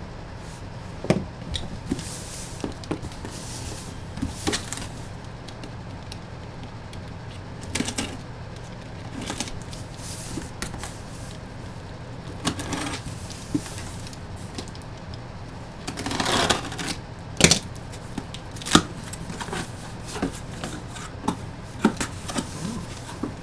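Unpacking by hand: scattered clicks and taps with a few short stretches of rustling packaging, over a steady low hum.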